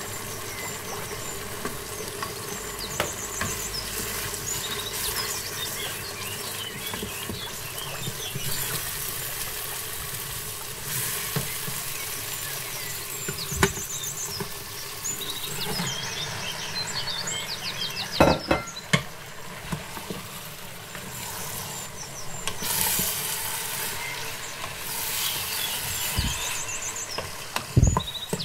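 Curry masala sizzling in oil in an electric pressure cooker's inner pot, stirred with a wooden spoon, with short high squeaks now and then. A few sharp knocks against the pot, the loudest about two-thirds of the way through and just before the end.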